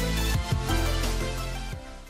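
Background music with a steady bass, fading out near the end.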